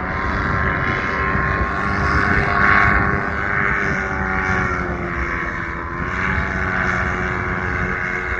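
A low-flying aircraft's engine droning steadily, a stack of tones that sag and rise slowly in pitch as it moves.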